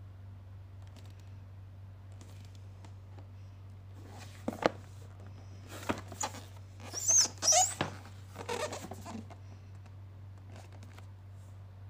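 Cardboard router box handled and turned over in the hands: a few sharp taps and knocks, with scraping and rubbing of fingers on the cardboard, between about four and nine seconds in, over a steady low hum.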